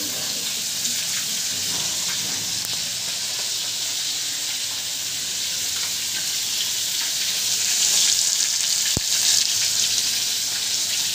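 Fish pieces frying in hot oil in a pan, a steady sizzle that grows louder about eight seconds in.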